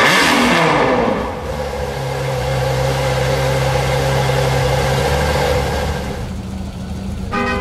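A car engine revs sharply, its pitch falling back over about a second. It then runs at a steady idle for several seconds. Music starts near the end.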